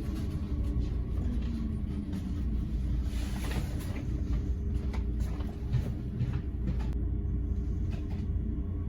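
Passenger train running along the track: a steady low rumble with faint scattered clicks.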